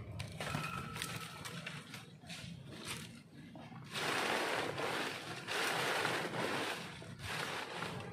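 Dry leaves crunching and rustling as a gloved hand presses them down into a fabric compost bag, with two louder stretches of crunching in the second half.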